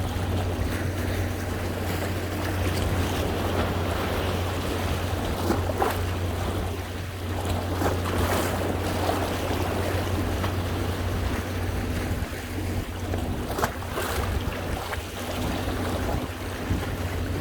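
Sea waves washing against shoreline rocks: a steady wash of surf with a few brief splashes, over a constant low rumble.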